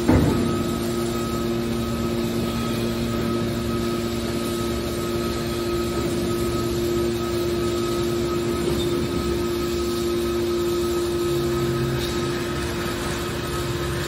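Hydraulic scrap metal baler running with a steady hum and whine while its cylinders swing the press lid open. A single sharp clank comes right at the start.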